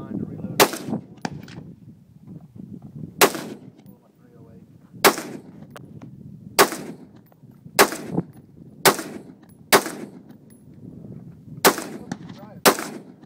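AR-15-style semi-automatic rifle being fired single shot after single shot, about nine shots at uneven gaps of one to two seconds, each a sharp crack with a short echo after it.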